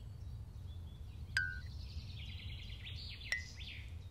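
Quiet outdoor ambience: birds chirping and trilling over a steady low rumble, with two short click-and-ping sounds, one about a second and a half in and one near the end.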